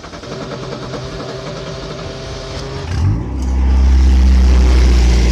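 1986 Pontiac Fiero's 2.5-litre 'Iron Duke' four-cylinder being cranked by the starter with an even rhythm, catching about three seconds in with a short rise in revs, then running steadily and loudly. It is the engine's first start after sitting for years, fed from a jerry can through an inline electric fuel pump.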